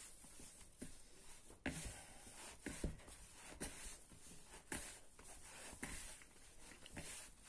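Hands working yeast dough into flour in a plastic bowl: faint, irregular soft rustles and light knocks.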